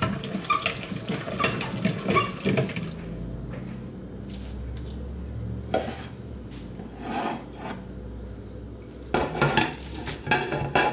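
A hand-cranked meat grinder grinds wet food in the first few seconds, with irregular squelching and scraping. Near the end a spatula scrapes ground meat off a ceramic plate into a stainless steel stock pot, with sharp clinks of the plate and spatula against the pot.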